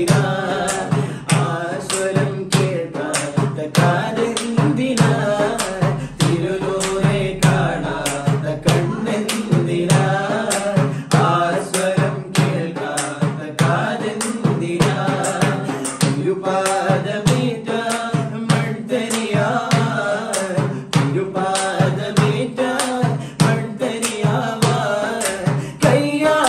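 Men singing a Malayalam madh song, a devotional song in praise of the Prophet, in close unison, over a steady percussion beat.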